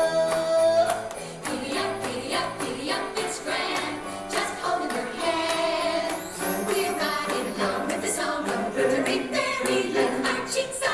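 Country-style Christmas song from an animatronic bear stage show's soundtrack: singing over a band, with jingle bells shaking on the beat.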